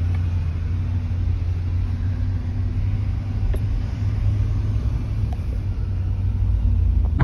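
Toyota Tundra pickup driving at a steady pace: an even, low rumble of engine and road noise.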